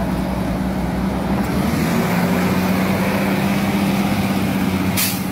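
Heavy truck's diesel engine running close by with a steady drone, with a short hiss about five seconds in.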